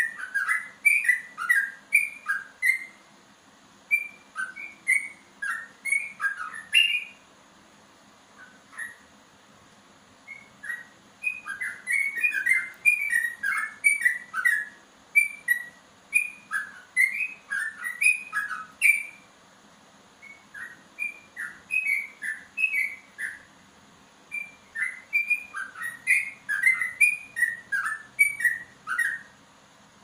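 A caged yellow-vented bulbul (trucukan) singing in long runs of quick, rising and falling whistled notes. The runs are broken by pauses of a second or two.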